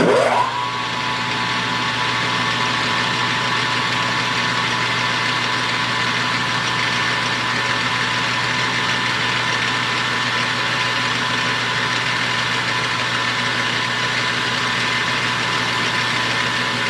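Metal lathe spindle spinning up with a quick rising whine, then running steadily at speed with a constant whine and hum as the cut is fed out.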